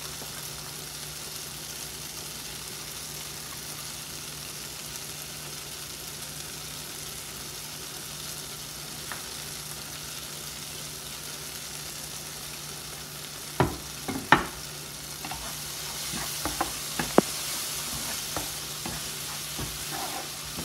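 Chopped onion, tomato and almonds sizzling in butter in a frying pan, over a steady low hum. About two-thirds through, a wooden spoon knocks twice against the pan, then taps and scrapes as the mixture is stirred, and the sizzle grows louder.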